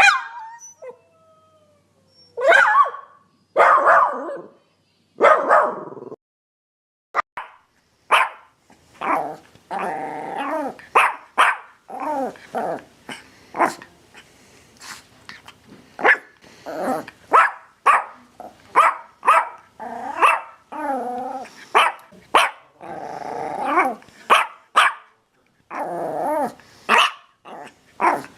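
A dog barking. It gives three long barks about a second and a half apart, then after a short pause a fast, irregular run of barks with some growling mixed in.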